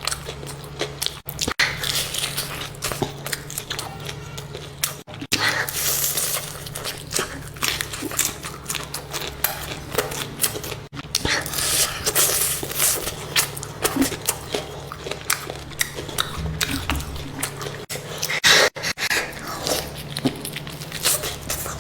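Close-miked chewing and crunching of food, with many irregular bites and mouth clicks.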